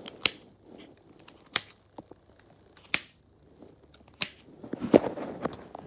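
A small plastic colour-matching puzzle cube, an easy version of a Rubik's Cube, being twisted. There are four sharp clicks about a second and a half apart, then a quick flurry of clicks near the end.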